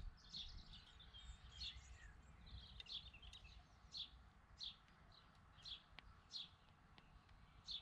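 House sparrow chirping: short, high cheeps repeated steadily, about one every half second or so.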